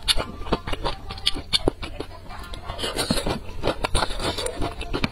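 Close-miked eating sounds: wet chewing, slurping and lip smacks, many quick clicks and squelches, as food is eaten from a spicy soup.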